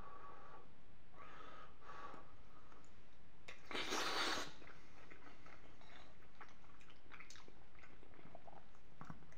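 Close-miked mouth sounds of a man eating creamy penne with peas in béchamel: soft, wet chewing with small clicks, and one louder hissing mouth noise about four seconds in.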